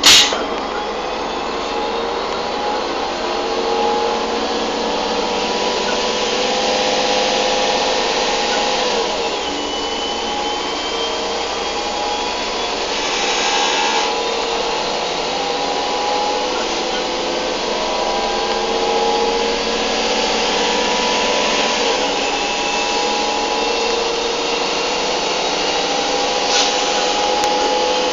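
An S-Bahn train running, heard from the driver's cab: steady running noise with a machine whine that slowly climbs in pitch and drops back sharply twice, about nine seconds in and again about twenty-two seconds in.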